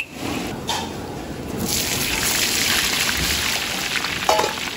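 Oil sizzling and bubbling in a wok as yong tau foo and eggplant pieces deep-fry. The sizzle becomes louder and hissier about two seconds in.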